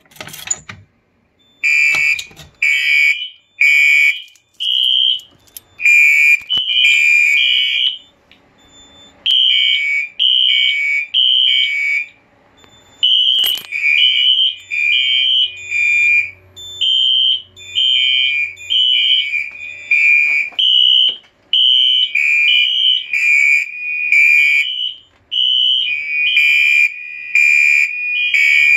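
A fire alarm pull station clicks as it is pulled, and about two seconds later fire alarm horns start sounding an on/off pulsing evacuation signal. Two high tones at different pitches overlap and are not in step with each other.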